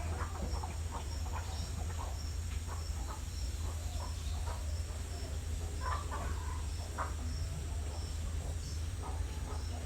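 Rural morning ambience: a cricket chirping steadily about twice a second, with scattered short calls of chickens and other birds over a constant low hum.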